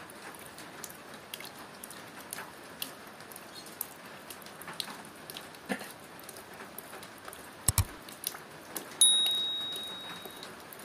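Light rain pattering, with scattered drips. Near the end there are two quick clicks, then a bright bell-like ding that rings out over about a second and a half.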